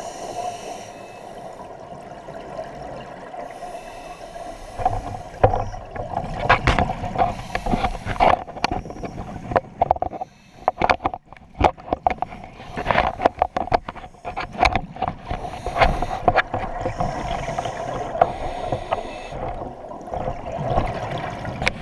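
Scuba regulator exhalations heard underwater through the camera's housing: bouts of bubbling and crackling a few seconds long, the first about five seconds in, over a steady hum.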